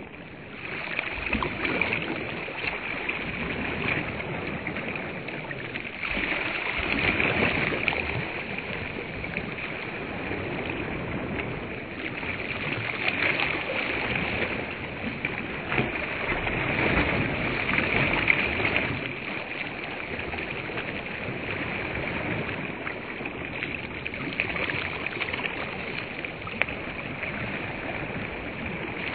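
Small waves washing onto a sandy shore, a steady rushing that swells and eases every few seconds as each wave comes in.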